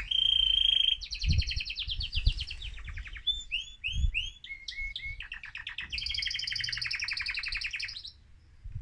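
Excited male mosaic canary in full song: a held whistled note, then runs of fast trills and quick down-slurred notes, ending in a long rolling trill that stops about a second before the end.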